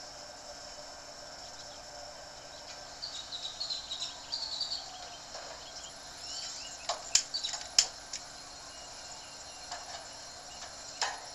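Crickets chirping steadily, with a few sharp clicks and knocks about seven seconds in and again near the end.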